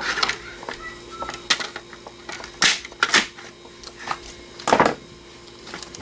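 Clicks, clatter and a few sharper knocks of scrap PC DVD drives and their parts being handled and pulled apart, the loudest knocks near the middle and about five seconds in.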